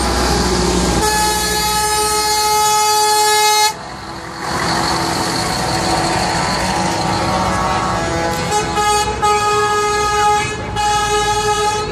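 Heavy truck air horns sounding as the trucks drive past: one long steady blast about a second in, then, after a few seconds of engine noise, a series of shorter toots near the end.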